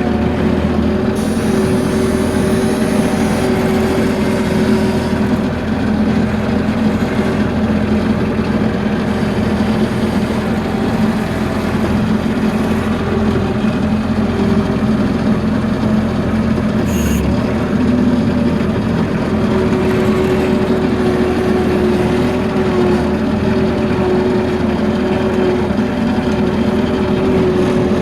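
Bobcat skid-steer loader's engine running at a steady speed. There is a short sharp clink a little past the middle.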